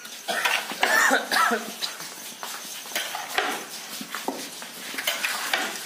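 Long metal ladle stirring and scraping chicken pieces in a big steel cooking pot, a series of short scrapes over frying sizzle. A brief loud vocal sound, like a cough or cry, comes near the start.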